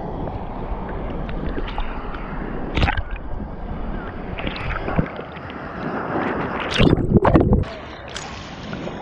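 Choppy sea water sloshing and gurgling right at the microphone as it rides at the waterline in rough surf, with sudden splashes, the loudest about seven seconds in.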